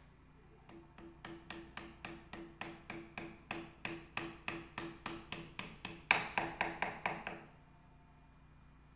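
Rapid light taps of a soft-faced mallet on the clutch release bearing at the centre of a Honda CBX 1000 clutch pressure plate, seating the bearing. The taps come about four a second and grow harder, with the firmest blows near the end before they stop.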